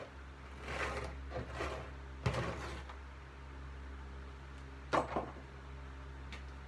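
Junk being handled and sorted: scattered rustling and scraping, with a sharp knock a little over two seconds in and another about five seconds in, over a steady low hum.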